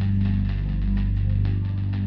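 Royalty-free background music with a heavy bass line and a steady beat.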